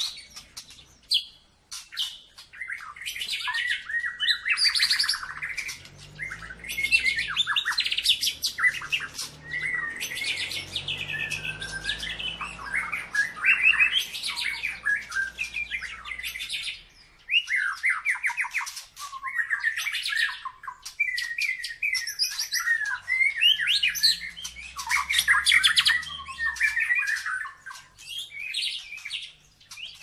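White-rumped shama (murai batu) in full song: a loud, varied run of rapid trills, chattering notes and whistled phrases, broken by a few brief pauses.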